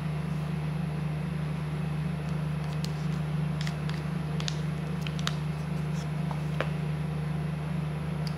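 A steady low hum, with a scatter of small clicks and taps between about three and seven seconds in as a new iPhone 16 Pro Max is lifted out of its cardboard box tray and handled, fingernails tapping the phone.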